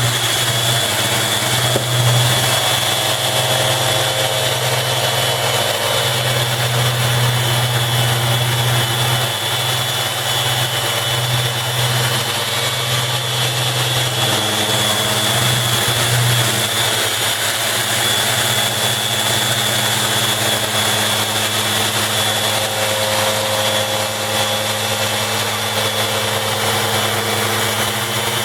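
Bosch 6-inch random orbital sander running steadily on a wooden table top, pressed down by a 15-pound bag of lead shot instead of by hand: a constant motor hum with a thin high whine over a sanding hiss.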